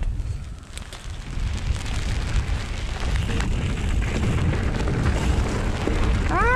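Wind buffeting an action camera's microphone and knobby tyres rolling over dirt while a mountain bike is ridden down the trail: a steady low rumble with scattered light clicks and rattles. A short rising-and-falling vocal sound comes in at the very end.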